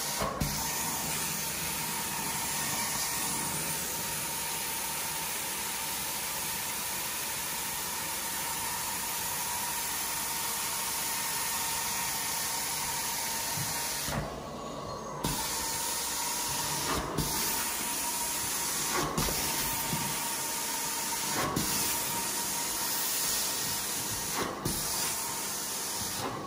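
Hot-water extraction carpet cleaning wand spraying and vacuuming as it is drawn across wet carpet: a steady rushing hiss with a faint whine. In the second half it breaks off briefly several times, with clicks every couple of seconds.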